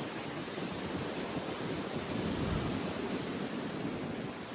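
Storm wind gusting with heavy rain, a steady hiss with a low, uneven rumble of wind buffeting the microphone.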